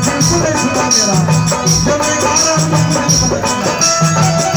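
Live band music of a Bhojpuri devotional stage group with dholak, drum pad, banjo and organ: a steady drum beat with a regular shaker-like rattle under the melody.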